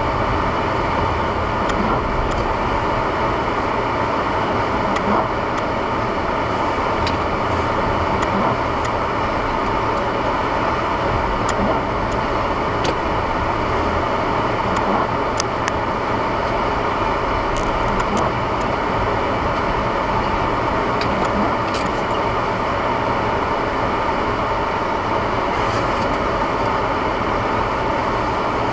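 Honda Civic running, heard from inside the cabin by a dash camera: a steady din of engine and tyre noise with a few faint ticks.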